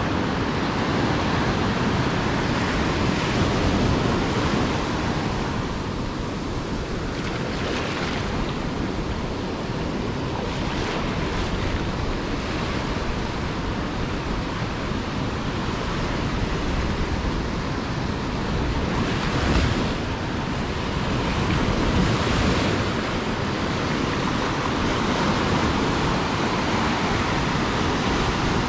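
Ocean surf on a beach: a continuous wash of waves, with a wave breaking every few seconds, and some wind on the microphone.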